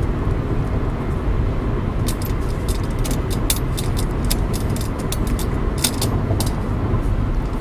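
Steady low road rumble heard inside a moving car, with a run of quick light clicks and rattles from about two seconds in.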